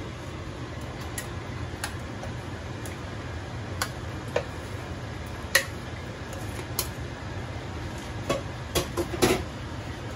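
A spatula scraping and tapping against a plastic bowl as raw shrimp are tipped from it into a large aluminium stockpot of broth: a string of sharp, irregular clicks and knocks, the loudest near the end, over a steady low hum.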